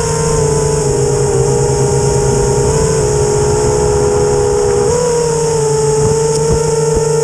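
FPV quadcopter's electric motors and propellers whining steadily, the pitch holding nearly level with small shifts, over a loud rushing hiss.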